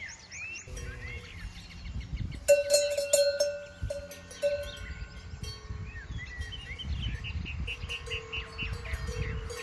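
Cowbells on grazing cows clanking and ringing, loudest in a cluster of clanks about two and a half seconds in, then an uneven, repeated jangle as the cows move. Birds chirp in the first second, over a low rumble.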